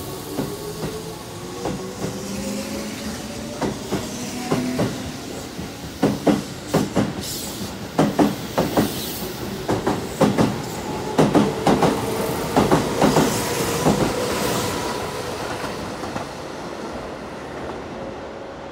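Keihan 8000 series electric train departing and accelerating. A motor whine rises in pitch, then the wheels clack over the rail joints in quick pairs as the cars pass, loudest midway. The sound fades as the train pulls away.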